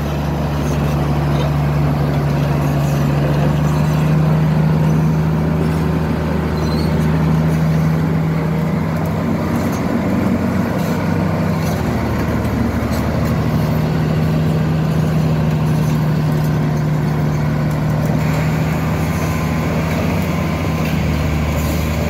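Komatsu D155A bulldozer's diesel engine running steadily, its note wavering briefly about halfway through before settling again.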